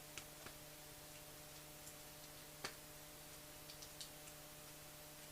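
Near silence with faint, irregular ticks of water dripping, about a dozen scattered through the stillness, over a faint steady hum.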